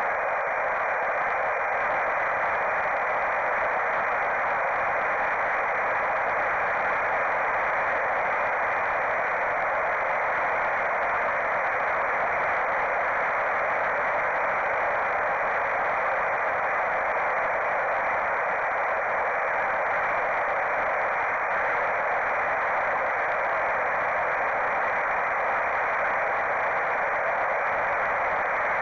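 Electric motor and propeller of a mini Popwing flying wing in flight, with wind rush, heard through the Foxeer Arrow camera's onboard microphone over the analog video link: a steady, narrow-band hissing rush that does not change.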